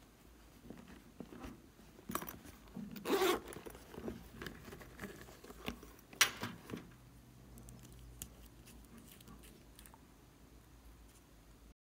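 Hands handling small plastic and silicone objects close to the microphone: soft rustles and taps, a short rasp about three seconds in and a sharp click about six seconds in.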